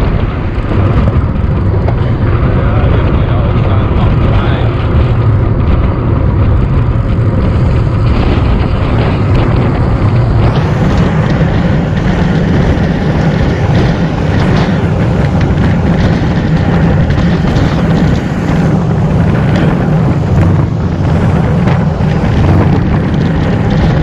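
Steady wind rush buffeting an action camera's microphone on a road bike riding at about 32 km/h, mixed with tyre and road noise.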